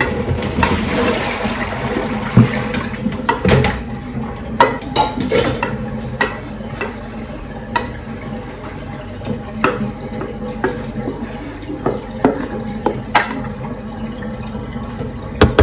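A spoon stirring and folding thick chocolate batter in a stainless steel mixing bowl, with irregular clinks and scrapes of the spoon against the metal bowl.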